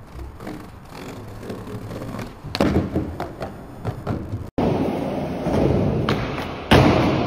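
Skateboard tricks: sharp board impacts and thuds, the loudest about two and a half seconds in. After an abrupt cut, wheels roll steadily over concrete, with another hard board impact near the end.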